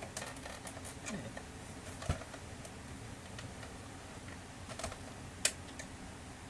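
Scattered clicks and small knocks of hands handling and probing the plastic case of a Samsung ML-1665 laser printer, with a louder thump about two seconds in and a couple of sharp clicks near the end.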